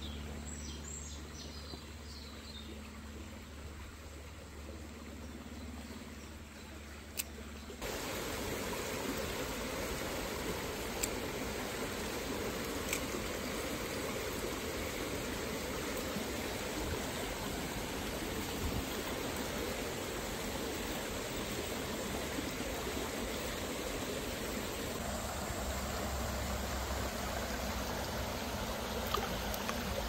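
Shallow stream running over rocks: a steady rush of water, which jumps louder about eight seconds in and stays even from then on. A few light clicks sound over it.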